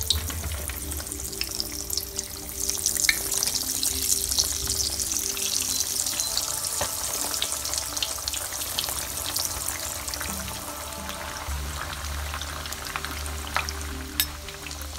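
Falafel balls deep-frying in hot oil in a pan: a steady crackling sizzle of many small pops, busiest in the first half.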